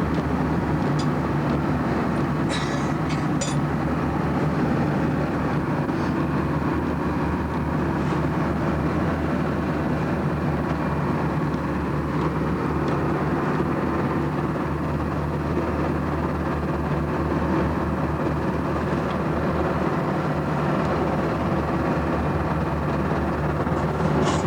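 Rescue boat's engine running steadily with a deep, even drone, with a few sharp clicks about three seconds in.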